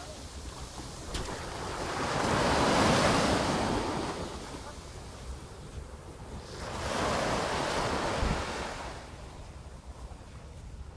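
Small surf breaking and washing up a sandy beach. Two waves rush in, the first about two seconds in and the second around seven seconds, with wind buffeting the microphone underneath.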